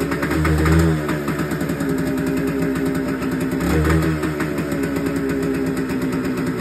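Two-stroke motorcycle engine running at a fast idle, a steady, slightly uneven note with small rises in speed.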